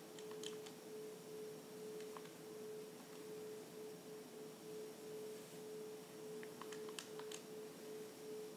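A faint, steady electrical tone, with scattered light clicks of calculator keys being pressed near the start and again about six to seven seconds in.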